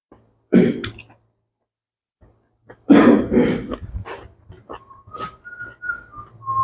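Two short eating noises while chewing a mouthful, then a whistled tune of a few held notes that step up in pitch and back down.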